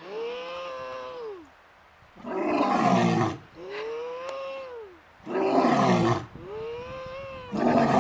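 A young boy calls out a long 'ooo' that rises and falls in pitch, and a lion answers each time with a short, rough roar, copying him. They go back and forth about three times.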